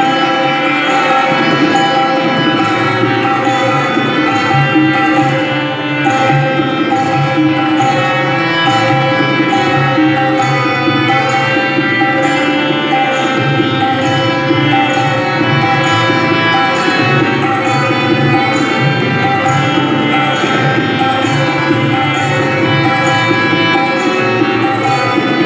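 Tabla played in a steady rhythm over a sustained melodic accompaniment.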